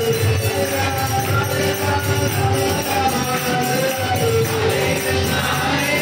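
Devotional kirtan music with a wavering melody and hand cymbals jingling steadily through it.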